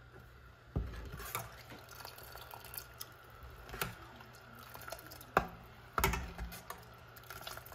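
A stainless steel ladle stirring milk in a stainless steel pot: liquid sloshing, with the ladle knocking against the pot several times, the loudest knocks about two-thirds of the way in.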